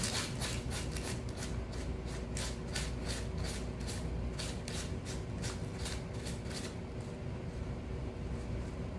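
Kitten scratching and digging in granular cat litter in an aluminium foil pan: quick scrapes at about three a second, pausing about seven seconds in.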